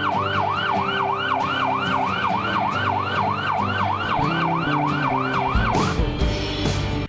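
Electronic fire-engine siren, its pitch sweeping upward again and again at about three sweeps a second, over background music. The siren stops about six seconds in and a brief low rumble follows.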